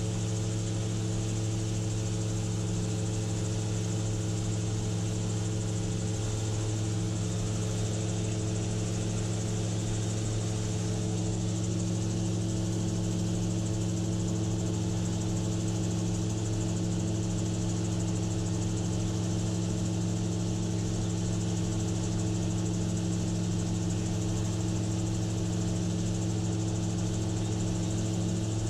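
Gyrocopter's engine and propeller running steadily in level flight, a constant drone under an even rush of air.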